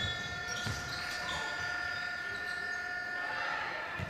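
A steady electronic buzzer tone with several pitches held at once, cutting off about three seconds in, typical of a game or shot-clock buzzer. A few low thuds sound under it.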